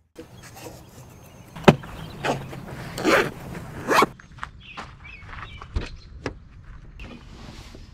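A zipper on a fabric bag pulled in three quick strokes about two to four seconds in, after a sharp click. A couple of lighter clicks follow near the end.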